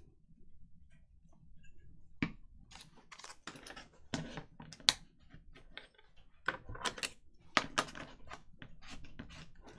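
Irregular light taps and clicks of hands handling paper and glue at a craft table. They start about two seconds in and come more often in the second half.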